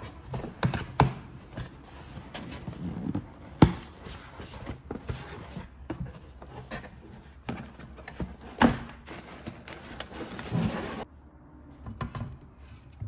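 Cardboard box being opened and handled: flaps scraping and rustling, with several sharp knocks and taps. Near the end, a few softer clicks as a laptop is set onto a metal laptop stand.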